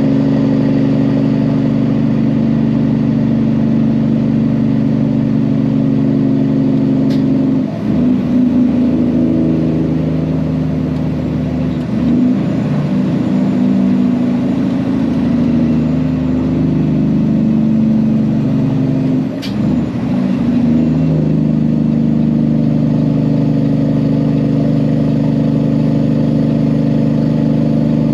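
Peterbilt semi truck's diesel engine running steadily under way, with the engine note changing and briefly dipping twice, about 8 and 20 seconds in.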